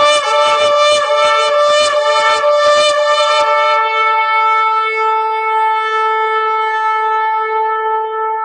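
A shofar (ram's-horn) blast. For about the first three seconds it comes in rapid stuttering pulses, then it settles into one long steady held note.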